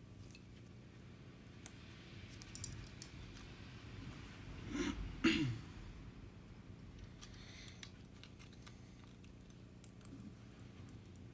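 Scattered light clicks and taps of small parts and tools being handled during an Apple Watch repair, as the battery connector is plugged in. About five seconds in comes a short vocal noise that falls in pitch, like a throat clear, which is the loudest sound.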